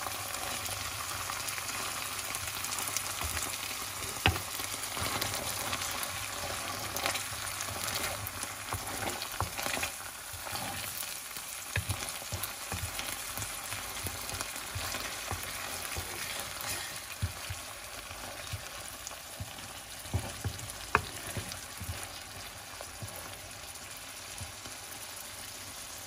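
Tomato passata frying and sizzling with sautéed onion and garlic in a nonstick pan, stirred in with a wooden spatula that scrapes the pan. There are a couple of sharp taps, about four seconds in and again near the end.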